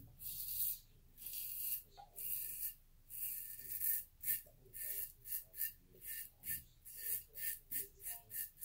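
Razor blade scraping through lathered stubble: a RazoRock Blackhawk v2 fitted with a Feather Professional blade, drawn in a run of short strokes. The strokes are longer and about one a second at first, then quicker, about three a second, from about halfway through.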